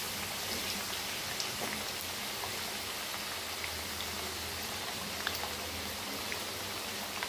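Potato pieces shallow-frying in hot oil in a pan: a steady sizzling hiss with scattered small pops and crackles.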